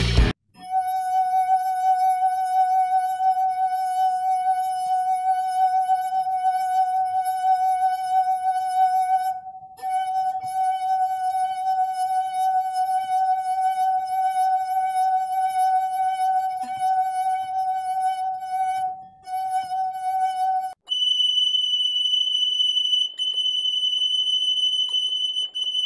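Wine glass rim rubbed with a wet finger, singing a steady, slightly wavering tone with a row of overtones. The tone breaks off briefly twice. The glass's tone is meant to set the identical glass beside it resonating so its toothpick falls. Near the end the same singing is sped up fourfold and jumps to a much higher pitch.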